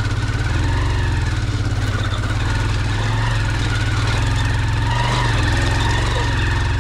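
Motorcycle engine running steadily at low speed while the bike rides over a rough, rocky dirt road, a continuous low rumble.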